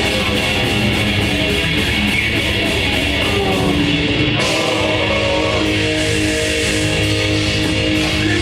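Grindcore band playing live: heavily distorted electric guitars and drums, loud and dense. About halfway through, the cymbals drop out for a moment and the guitars move to long held notes.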